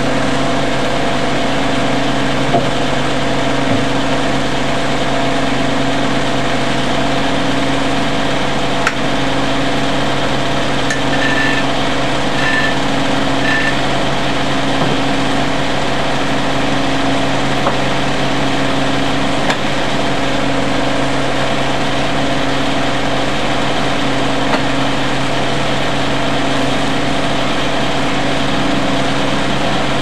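Antique circular sawmill running steadily with its 42-inch blade spinning free and no cut under way: an even engine-and-machinery hum with a slight regular throb. Three short high chirps come about halfway through.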